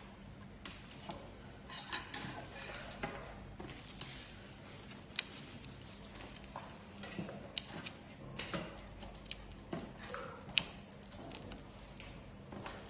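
Irregular small clicks and taps of hands handling a miniature OLED display module's flex cables and drive board, a dozen or so scattered through, one sharper click near the end.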